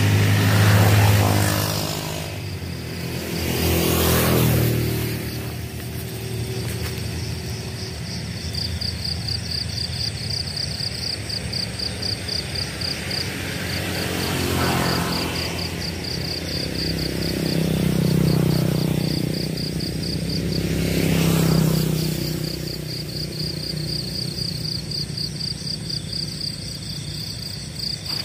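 Several motor vehicles pass one after another on a nearby road, each engine swelling and fading away. From about eight seconds in, insects keep up a high, fast pulsing trill.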